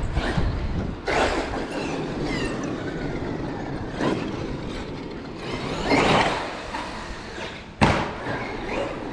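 Traxxas X-Maxx electric RC monster truck driving in bursts: its motor and drivetrain whine rising and falling with each burst of throttle over tyre noise on pavement. One sharp, hard impact near the end, the loudest sound.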